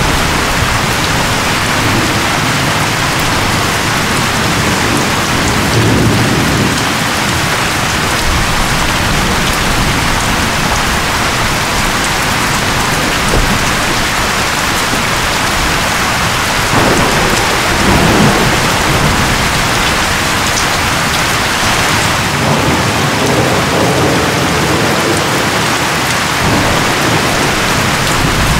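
Storm with strong wind and heavy rain, a steady loud hiss. A few low rumbles swell and fade within it.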